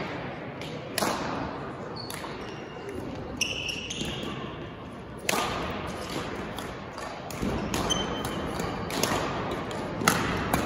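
Badminton rally: racket strikes on the shuttlecock ring out sharply at about one, five and ten seconds, echoing in a large gym, with short high squeaks of court shoes on the floor in between.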